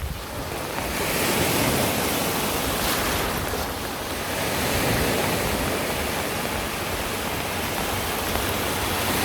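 Steady rush of flowing river water, swelling and easing every few seconds.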